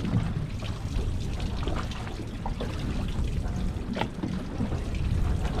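Water lapping and trickling against a small boat's hull over a steady low rumble, with a sharp tick about four seconds in.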